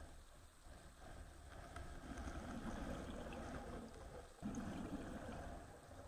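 Underwater ambience heard through a camera housing: a steady low rumble with two swells of rushing noise, the second starting suddenly about four and a half seconds in, and a few faint clicks.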